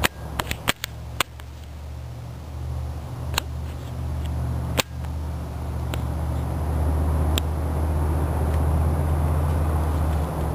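A steady low hum, louder in the second half, with several sharp clicks in the first second or so and a few single clicks later.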